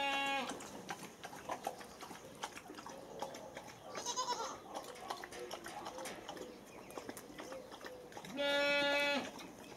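A goat bleating twice, each one steady held call of under a second, at the very start and again near the end, over faint scuffling of a puppy and a cat play-fighting on bare dirt.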